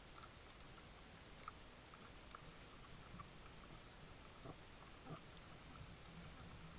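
Near silence: the steady hiss of a trail camera's microphone, with a few faint short ticks scattered through it.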